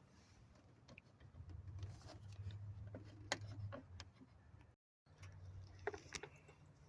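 Scattered light clicks and taps of hand tools and small parts on the engine, over a low steady hum. The sound drops out for a moment about five seconds in.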